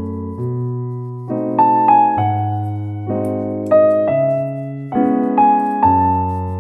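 Background piano music: a slow, gentle melody of single notes, each fading away, over low held chords.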